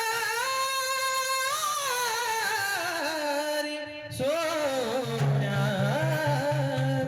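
A woman singing a Marathi devotional song, drawing out long, gliding held notes over instrumental accompaniment; a low, pulsing accompaniment note comes in about five seconds in.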